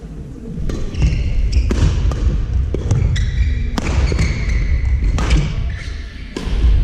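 Badminton doubles rally: sharp racket strikes on the shuttlecock at irregular intervals, with short shoe squeaks and footfalls on the sports-hall court floor.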